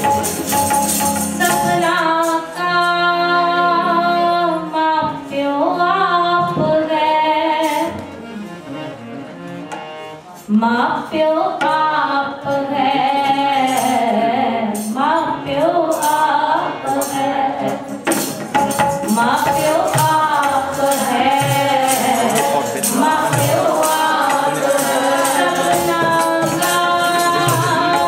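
Sikh kirtan: voices singing Gurbani to two harmoniums and tabla, with a steady high percussion beat keeping time. About eight seconds in the playing thins and softens, and about ten seconds in the full ensemble comes back in loud.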